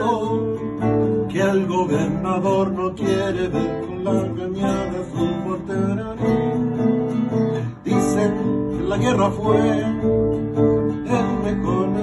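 Two acoustic guitars strummed together, playing an instrumental passage of a song with a steady rhythm.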